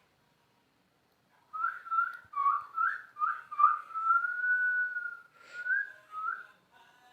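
A whistled phrase: a quick run of short swooping notes, then one long held note, then two more short notes before it stops.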